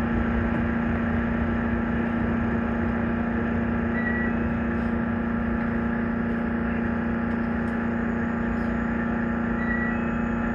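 Running noise inside the cab of a JR Kyushu 813 series electric train: a steady low hum over the rumble of wheels on rail. Two short, faint high beeps come about four seconds in and again near the end.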